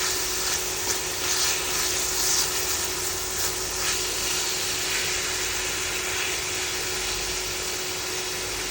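Thin-sliced chicken breast sizzling steadily as it fries in hot oil, louder in patches during the first few seconds, with a faint steady hum underneath.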